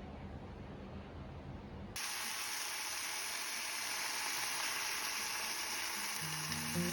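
Food sizzling in a frying pan, a steady even hiss that starts abruptly about two seconds in after a faint low hum.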